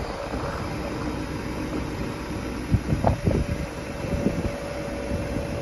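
The hydraulics of a wood-chip trailer's tilting roof panel run with a steady whine over a low rumble, with a few short creaks and knocks about three seconds in.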